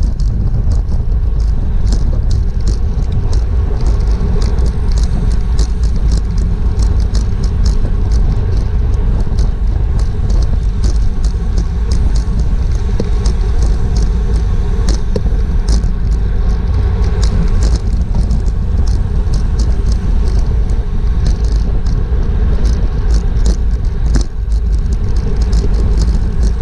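Wind rushing over a bicycle-mounted GoPro's microphone at racing speed: a loud, steady low rumble, with frequent sharp ticks on top.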